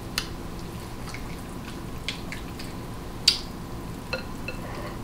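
Close-up wet eating sounds: sauce-coated seafood being handled and chewed, with a few sharp clicks, the loudest a little past three seconds in.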